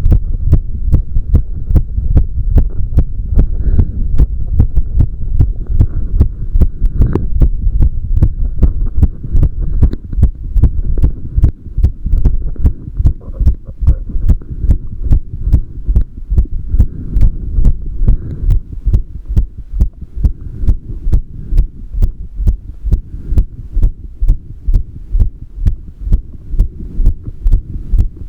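A human heartbeat recorded close up: a steady, regular train of beats with a low hum underneath.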